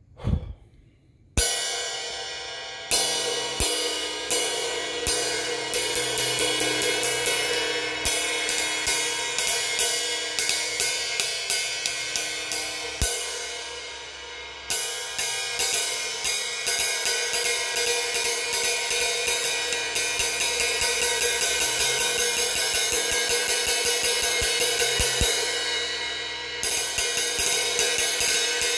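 A 1988 Paiste Sound Creation 18-inch Bright Medium cymbal played with a drumstick, after a brief thump at the very start. A loud first strike comes about a second in, then single strokes a second or so apart over a long ringing wash. From about halfway the strokes quicken into a steady ride pattern of several a second.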